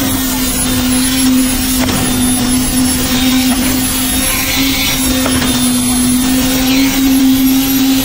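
Hand-held electric concrete vibrator running, its poker head working in freshly poured wet concrete to consolidate it; a steady hum at one unchanging pitch.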